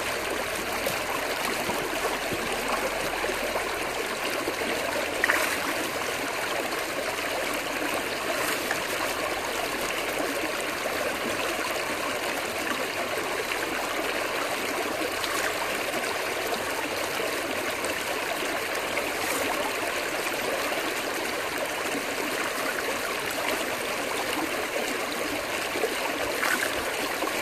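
Creek water rushing steadily down a metal gold-prospecting sluice box, with one brief sharp sound about five seconds in.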